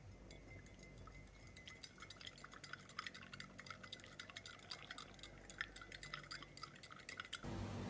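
Metal spoon stirring sugar into hot water in a glass mug: faint, rapid clinks of the spoon against the glass as the sugar dissolves.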